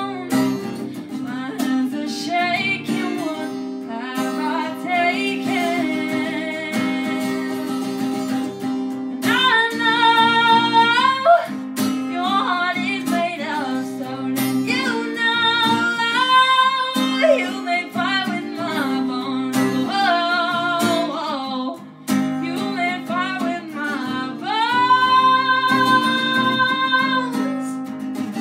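Solo singer accompanying themself on acoustic guitar: a slow song with long held sung notes over steady strummed guitar chords.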